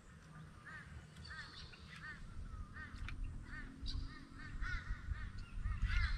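A bird calling repeatedly, short rise-and-fall notes about every half second that come faster toward the end, over a low rumble.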